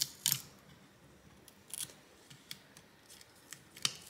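Metal tweezers and adhesive tape being worked off a circuit board: a handful of sharp, separate clicks a second or two apart, with fainter small ticks and crinkles between them.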